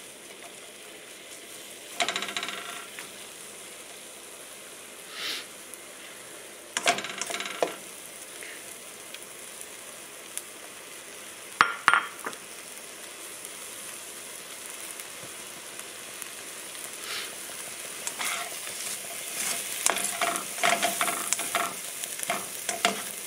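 Diced onion and garlic sizzling in olive oil in a stainless steel pan over medium heat. A slotted spatula scrapes and taps the pan a few times, then more often over the last few seconds as the onions are stirred.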